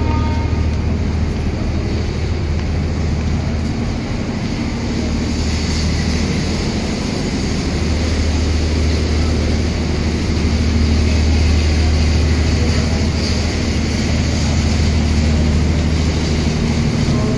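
Steady low engine drone of a train standing at the platform, running at idle, under a constant noisy background.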